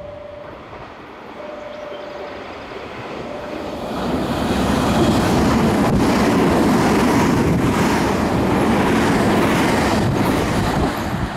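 Nankai 50000 series Rapi:t electric train running through the station platform at speed: its noise swells from about four seconds in and stays loud, with wheels clacking over rail joints. Before it arrives, a beeping tone repeats a few times.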